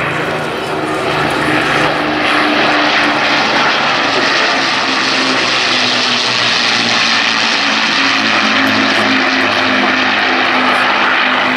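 Avro Lancaster bomber's four Rolls-Royce Merlin V12 engines running steadily with propeller noise as the aircraft flies low overhead. The sound is a loud, even engine note.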